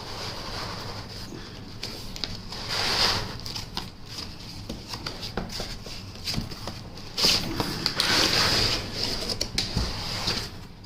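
Laptop box and its packaging being unpacked by hand: rustling and crinkling with scattered light knocks, loudest about three seconds in and again from about seven seconds on.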